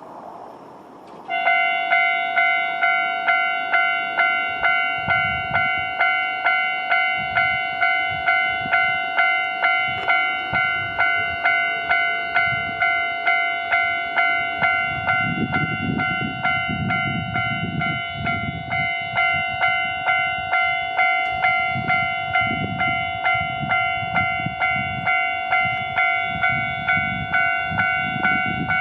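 Japanese railroad crossing warning bell starting about a second in and then ringing in a steady, quick 'kan-kan' rhythm. From about halfway, a low rumble from the approaching diesel railcar swells beneath it.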